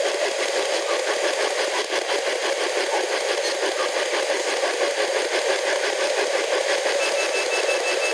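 P-SB11 spirit box sweeping through radio stations, putting out a steady, rapid chop of radio static and fragments through its speaker. A faint high tone comes in about seven seconds in.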